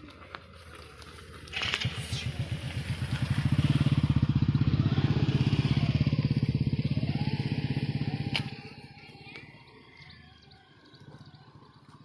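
A small-engined motor vehicle passes by. Its rapid engine pulses build about a second and a half in, hold loud for several seconds, then fade away about eight and a half seconds in.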